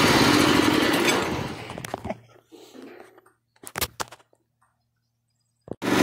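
Predator 212cc single-cylinder four-stroke engine running, then switched off and dying away over about a second. A few faint knocks follow in the quiet, and the engine is running loudly again near the end.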